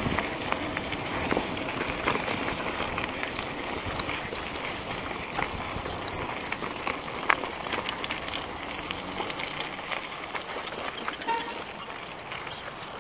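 Caloi XRT mountain bike rolling along a dirt road: a steady rush of tyre noise on the gravelly surface, with scattered clicks and rattles from the bike over the bumps, thickest about eight to ten seconds in. It grows slowly quieter toward the end.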